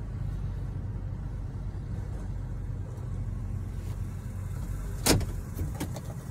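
Steady low rumble of a car idling, heard from inside the cabin, with one sharp knock about five seconds in followed by a couple of softer clicks.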